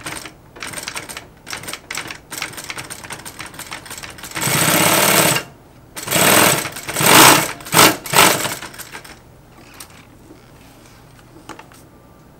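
Industrial sewing machine driven by a servo motor, stitching through eight layers of awning canvas. First comes a run of rapid needle strokes, then several short bursts at higher speed between about four and eight seconds in. It stops about nine seconds in, leaving only a few faint clicks.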